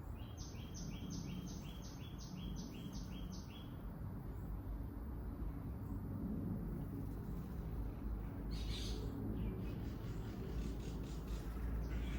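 A small bird calling a quick run of about nine sharp, evenly repeated notes, roughly three a second, then after a pause a brief rasp and a few fainter notes near the end, over a steady low background rumble.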